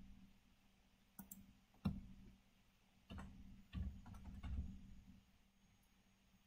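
Faint clicks of a computer mouse and keyboard: a couple of single clicks, then a short run of keystrokes about three to five seconds in as a number is typed into a spreadsheet cell.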